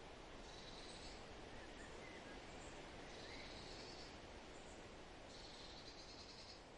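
Faint outdoor nature ambience: a steady hiss with short high trills about a second long that come back every two to three seconds, and a faint bird chirp.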